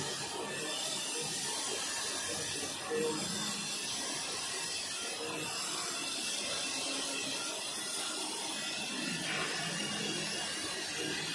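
Toilet-tissue band saw cutting machine running, its band blade slicing paper rolls as the conveyor feeds them: a steady mechanical noise.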